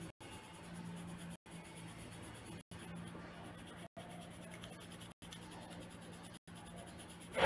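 Coloured pencil scratching on paper while shading in a drawing, cut by brief gaps a little more than once a second.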